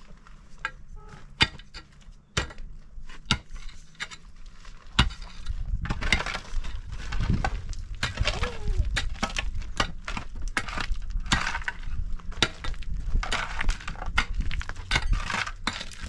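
A pick and a shovel digging into stony soil: sharp metal-on-stone strikes and scraping of earth and gravel. The strikes are sparse at first and grow busier about five seconds in.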